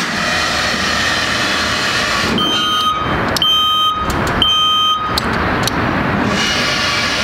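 JLG 2646 electric scissor lift lowering its platform: a steady noise with the descent alarm beeping three times, about once a second, near the middle.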